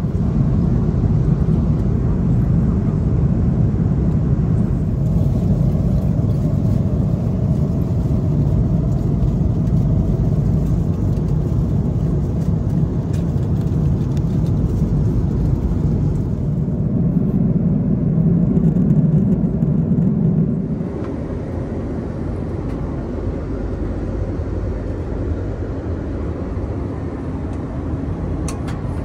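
Steady low rumble of an Airbus A330-300 cabin in cruise, from engine and airflow noise. About three-quarters of the way through it drops to a quieter, duller hum heard inside the lavatory.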